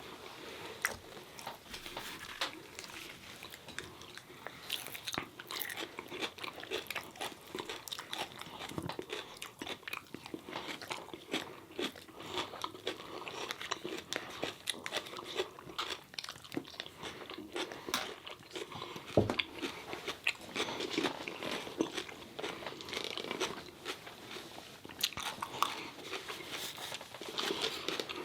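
Close-up biting and chewing of fried chicken tenders and fries, with crunchy bites and a dense run of small crackles. There is one sharper knock about two-thirds of the way through.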